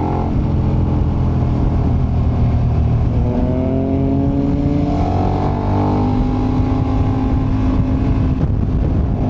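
KTM 1290 Super Adventure's V-twin engine running under load, heard from onboard the motorcycle. Its note drops about three seconds in, then climbs steadily as the bike accelerates and holds near the end.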